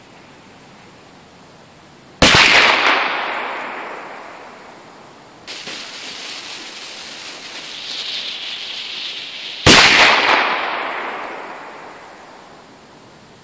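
A Grom 2 firecracker bangs about two seconds in, its report fading away over about three seconds. Then a Piratka firecracker's lit fuse hisses steadily for about four seconds before it bangs with the same long fading tail.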